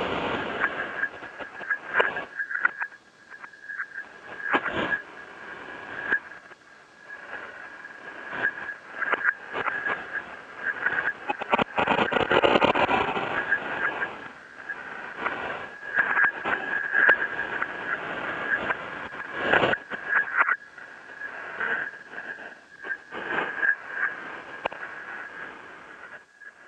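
Radio static and crackle with a steady high whine under it, broken by irregular pops and swells of hiss; it cuts off abruptly at the end.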